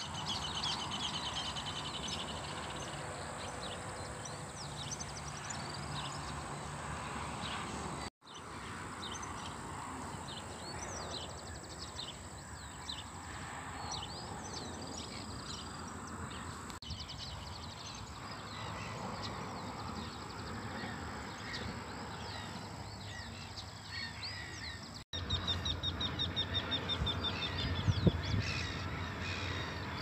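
Many birds chirping and calling, among them harsh cawing calls and fast high trills, over a steady low rumble of outdoor background noise. The sound drops out briefly twice.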